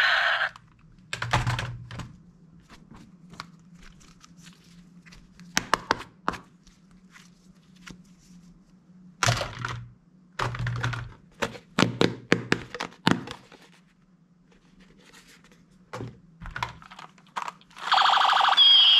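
Hard plastic toy guns handled and set down on a table: scattered clicks, knocks and thunks, thickest in the middle. Near the end a loud, high electronic sound effect from a battery toy gun starts up.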